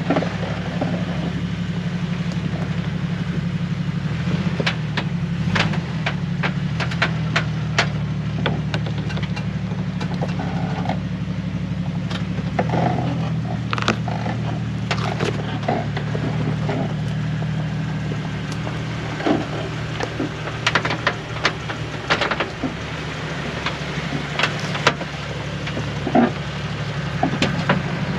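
A Jeep engine running steadily at low revs while crawling down a rocky trail, with scattered sharp knocks and clicks throughout.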